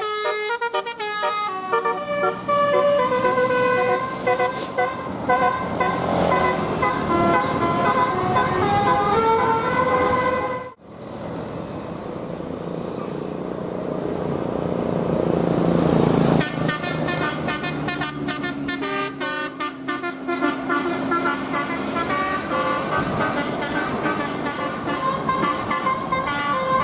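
Telolet multi-tone bus horns playing quick stepped melodies, note after note. The horn tunes break off suddenly about ten seconds in, giving way for several seconds to engine and road noise, then start again.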